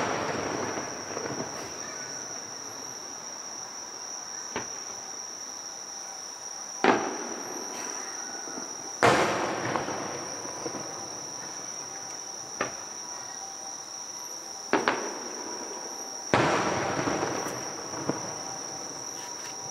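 Aerial fireworks shells bursting at a distance: about seven sharp bangs, the loudest near 7, 9 and 16 seconds in, each echoing away over a couple of seconds. Insects trill steadily and high-pitched underneath.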